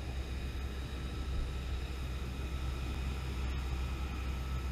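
Jet engine of an F-35B Lightning running steadily on a carrier flight deck: a deep, even rumble with a thin constant whine above it.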